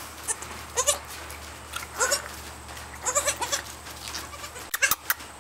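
Day-old pygmy goat kids bleating: several short, high calls about a second apart, some rising in pitch. A few sharp clicks near the end.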